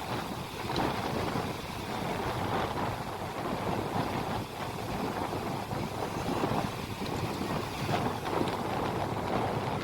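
Uneven rushing of wind buffeting the microphone, mixed with the noise of a boat moving over the sea.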